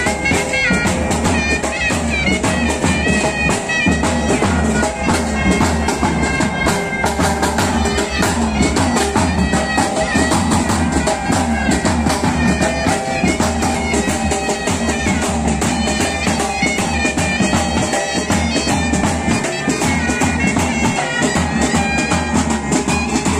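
Pipe band playing: bagpipes sound a melody over steady drones while drums beat rapidly underneath.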